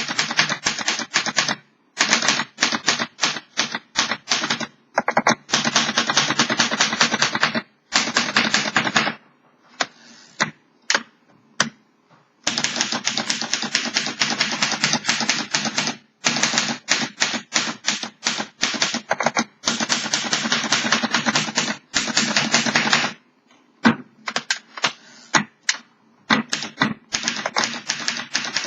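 1947 Underwood Champion manual typewriter being typed on fast: long runs of rapid key strikes, broken by a few short pauses with only scattered single clicks.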